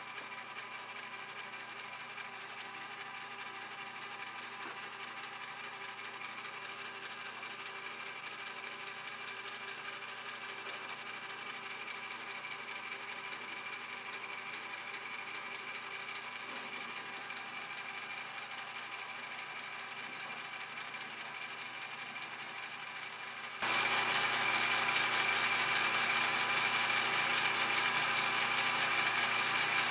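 Restored Atlas horizontal milling machine running steadily through its first test cut, a hum with several fixed tones. It becomes abruptly louder about 24 seconds in.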